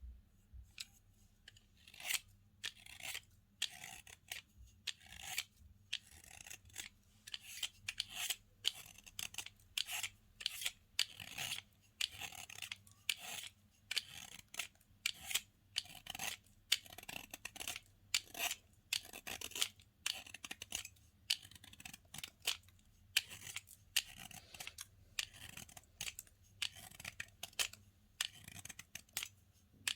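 Slime being pressed and stretched by hand, giving an irregular run of crisp sticky crackles and clicks, about two a second.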